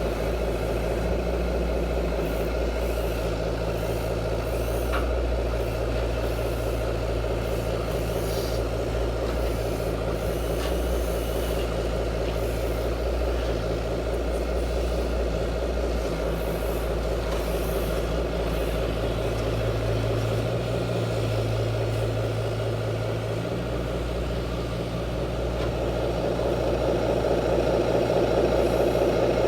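Truck engine sound running steadily at idle, a low drone that shifts a little partway through.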